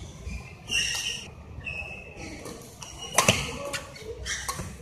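Badminton rally in a large hall: rackets striking the shuttlecock, the loudest a sharp crack about three seconds in and a couple of lighter hits near the end, with brief shoe squeaks on the court mat and voices in the background.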